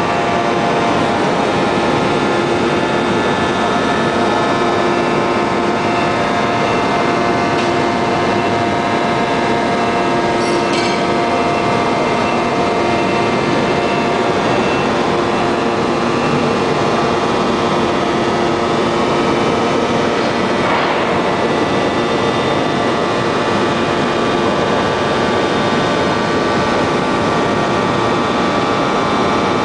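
A 1250-ton open-die forging press and its machinery running, making a loud, steady mechanical noise with several steady whining tones that hold unchanged throughout.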